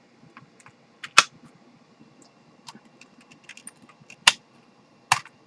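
Blu-ray box-set packaging being handled: scattered small clicks and ticks, with three sharp clacks, one about a second in, one past four seconds and one near the end.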